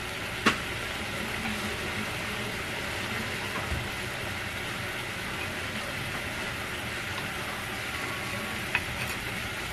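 Chicken pieces in chili sauce sizzling steadily in a frying pan over a gas flame. One sharp click comes about half a second in, and a couple of light clicks come near the end.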